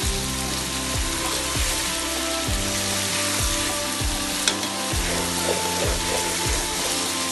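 Chicken pieces sizzling as they fry in oil in a pot, stirred with a wooden spatula, with one sharp click about four and a half seconds in.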